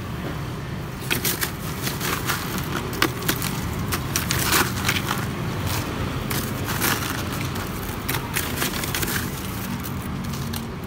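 A plastic ladle scooping crushed ice out of an ice box and tipping it into a plastic cup: repeated crunching and clattering of ice starting about a second in, over a steady low hum.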